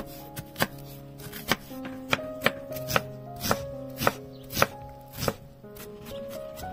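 Chef's knife finely chopping an onion on a bamboo cutting board: a run of sharp knocks, about two a second, that thin out near the end, over soft background music.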